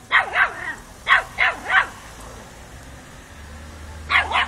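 Miniature Pinscher puppy barking at a cat in short, high-pitched yips: two quick runs of three barks in the first two seconds, then two more near the end.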